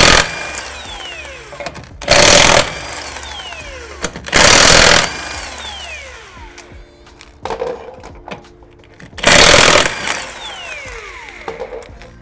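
Impact wrench hammering lug nuts loose in four short bursts, about half a second each: one right at the start, then about 2, 4½ and 9½ seconds in. Each burst is followed by a falling whine as the wrench spins down after the trigger is released.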